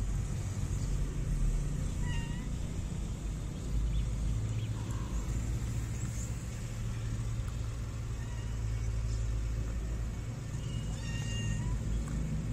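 Stray cat meowing a few times with long gaps: a short meow about two seconds in and another near the end, over a steady low rumble.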